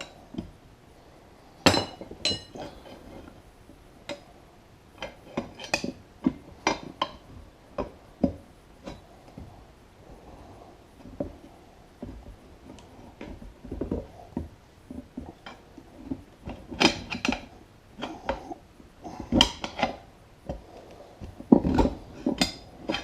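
Metal tools clanking and scraping against a mower wheel rim while prying a stubborn tire bead over it: irregular metallic clinks and knocks, some ringing briefly.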